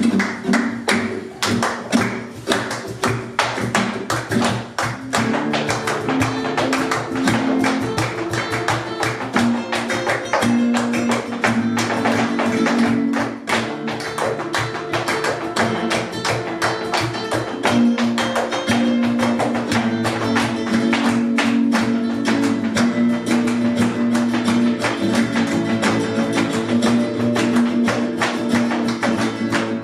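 Live flamenco music in the caña form: acoustic guitars over a dense run of fast percussive strikes. Held notes come in about five seconds in.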